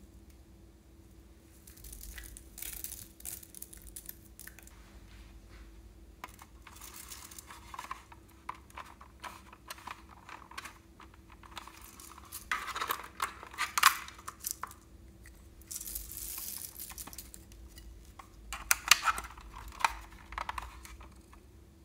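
Loose plastic sequins rustling and pattering as they are handled, mixed with irregular clicks and knocks from a hard plastic toy being handled. The sharpest clusters of clicks come about two-thirds of the way through and again near the end, over a faint steady hum.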